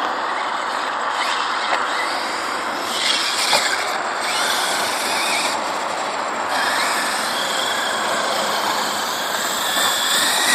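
Exceed MadBeast RC truck running over a dirt track, its motor and drivetrain whining and its tyres scrabbling in loose dirt. The sound holds steady, rising and falling slightly as the truck speeds up and slows.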